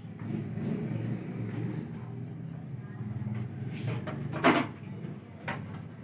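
A rose-ringed parakeet gives one short squawk about four and a half seconds in, over a low steady background hum.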